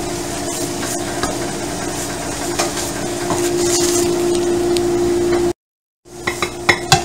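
Steady motor hum with a constant pitch, with a few faint light clicks over it. It cuts off abruptly for about half a second near the end, then returns.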